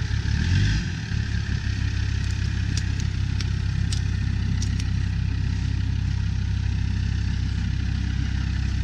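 Land Rover Discovery's TD5 five-cylinder turbodiesel running at low revs as the truck crawls slowly over rough ground; the revs shift briefly in the first second, then hold steady. A few faint sharp clicks sound over it.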